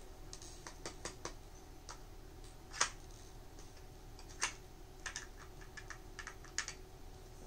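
Plastic pieces of a dog puzzle feeder clicking and knocking irregularly as they are handled and moved, with a sharper click a little before the middle and another about two-thirds of the way through.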